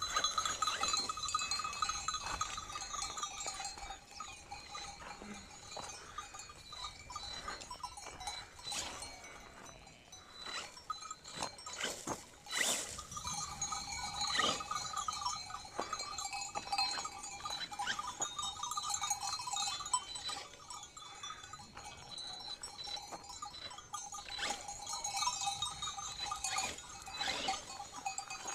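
Many sheep bells clanking and ringing together as a flock of sheep moves, a steady jangle broken by sharp metallic knocks.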